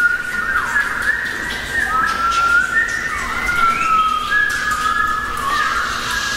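A vocal ensemble whistling: several whistled lines at once, overlapping and sliding up and down in pitch.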